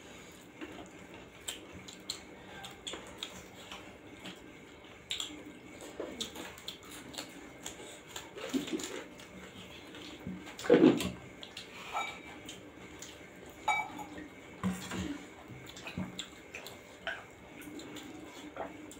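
Eating by hand from steel plates: wet chewing and mouth sounds, fingers mixing rice on the metal, with scattered small clicks and one louder knock or slurp about eleven seconds in.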